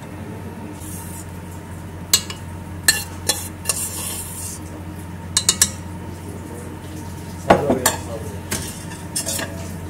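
Stand mixer running steadily, its beater churning flour into a creamed butter, sugar and egg batter in a stainless steel bowl. A low motor hum runs under scattered sharp metallic clinks and knocks against the bowl, the loudest about seven and a half seconds in.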